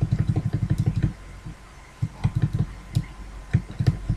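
Computer mouse scroll wheel clicking, a fast run of about ten clicks a second for just over a second, then a few shorter scattered runs of clicks.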